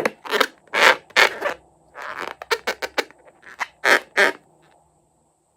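Clear slime being squished and pulled by hand, making a quick irregular run of short, wet, sticky squelches that stops near the end.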